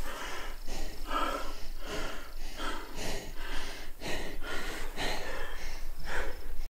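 A man breathing hard and fast, in quick airy puffs about two a second, right after an excited turkey kill. The sound cuts off suddenly near the end.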